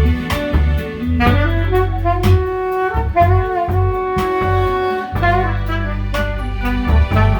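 Background music: a jazz-style tune led by a saxophone, with held melody notes over a steady bass line and drum beat.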